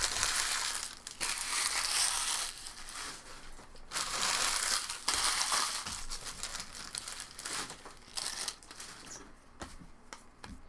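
Plastic trading-card pack wrappers crinkling and being crumpled, in several long stretches that fade toward the end.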